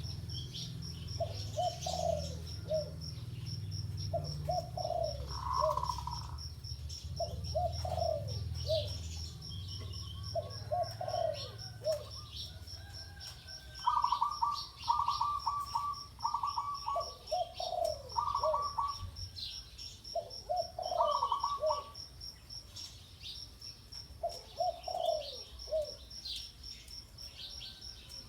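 Spotted dove cooing, short low phrases repeated every two to three seconds. A higher, rapidly repeated call joins for several seconds in the middle, over a steady fast pulsing insect trill and scattered small-bird chirps.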